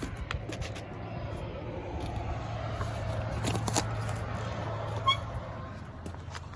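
Grocery store background sound: a steady low hum, a rolling, rattling noise that swells in the middle, scattered clicks and knocks, and one short electronic beep about five seconds in.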